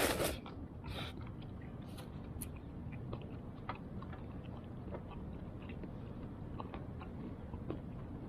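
A brief loud rustle at the very start, then faint scattered clicks and small handling noises over a steady low hum.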